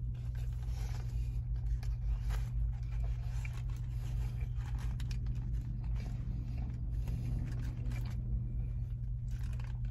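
Steady low hum of a parked car idling, heard inside the cabin, with faint crinkling of a foil-lined sandwich wrapper and quiet chewing over it.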